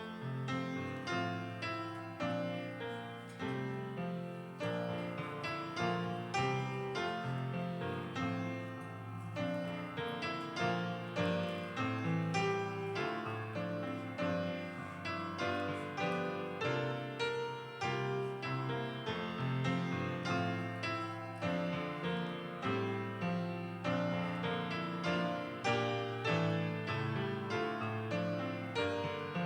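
Piano playing a worship song: chords and melody struck in a steady rhythm, starting suddenly.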